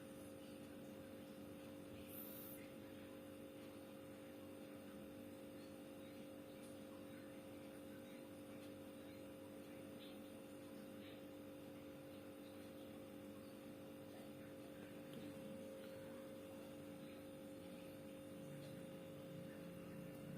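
Faint, steady hum with two constant tones from a Sharp two-door refrigerator running with its freezer and lower compartment at the coldest setting, still pulling the temperature down.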